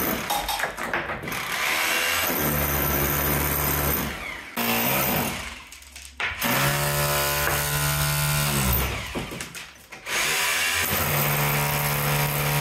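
Bosch corded rotary hammer chiselling into an old lath-and-plaster wall, its motor running in several bursts of one to three seconds with short pauses between.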